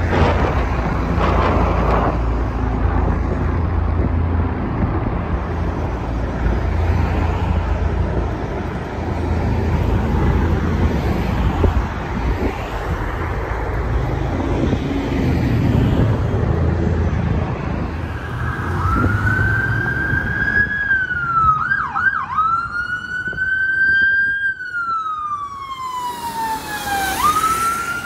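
A steady low rumble of street noise, then about two-thirds of the way in an electronic siren comes up, wailing slowly up and down with a brief quick warble in the middle. The siren belongs to an approaching police SUV running with its emergency lights on.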